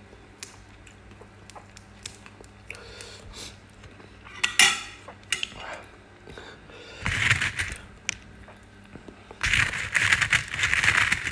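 Close-miked food sounds: a sharp clink of a metal spoon against the dish about halfway through, then bursts of crisp crunching from fresh herbs and greens, the loudest near the end.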